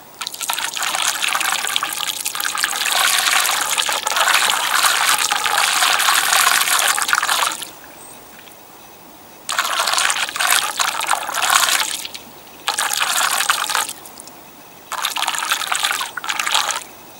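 Floodwater rushing and swirling close to the microphone. It comes in loud stretches: first a long one of about seven seconds, then three shorter ones, with quieter gaps between.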